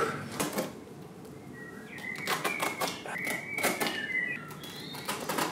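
A run of sharp clicks and taps from working carpet onto the stairs with a retractable utility knife in hand. A thin, wavering whistle-like tone sounds over the middle of the run.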